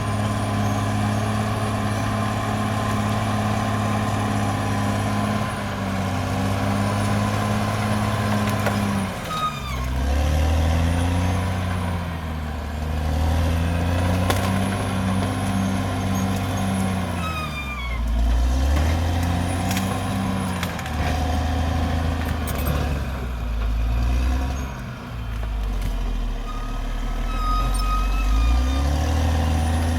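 Caterpillar D6R XL bulldozer's diesel engine running under load. Its note drops and climbs back several times as the blade takes and sheds load, with faint squeals from the machine over it.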